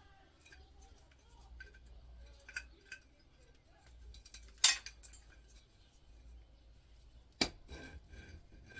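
Small metallic clicks and scrapes as a heavy steel hotplate is worked loose from an electric hob, with a sharp metal clank about halfway through and another near the end.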